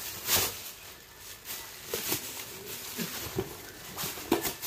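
Thin white plastic carry bag rustling and crinkling as a purse is pulled out of it, loudest in a burst near the start, then in scattered short crackles.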